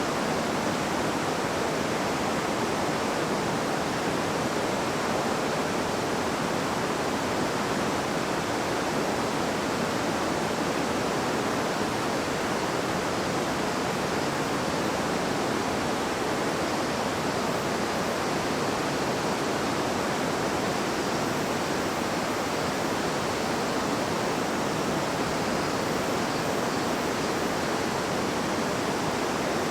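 A river babbling over stones, a steady, even rush of water.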